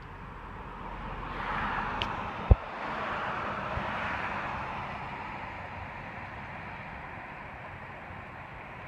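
A car driving past on the road, its tyre noise swelling and then slowly fading away, with a sharp knock about two and a half seconds in.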